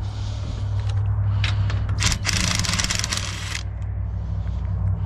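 Wrench work on a trailer-jack mounting bolt: a few sharp clicks, then about a second and a half of fast metallic rattling around two seconds in, over a steady low hum.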